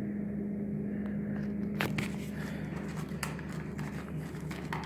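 Steady low hum of a refrigerated drink vending machine, with a few sharp clicks and taps spread through it.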